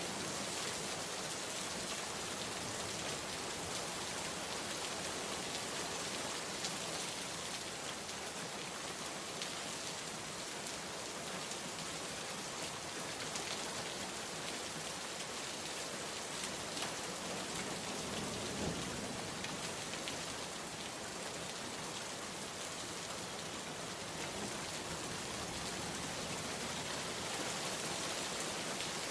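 Steady rain falling, many drops pattering on a surface. A faint low rumble, like distant thunder, swells briefly about two-thirds of the way through.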